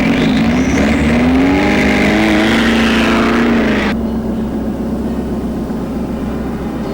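Car engine revving as the car drives off, the pitch wavering and rising; it cuts off abruptly about four seconds in, leaving a steady low rumble.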